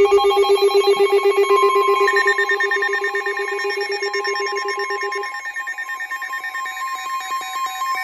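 Rapidly pulsing electronic tones: several steady pitches trill together like a ringing bell. A higher pitch joins about a second and a half in, and the lowest pitch drops out about five seconds in.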